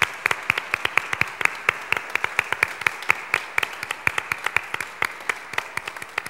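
A small congregation applauding in a large church, with many separate hand claps clearly distinct from one another.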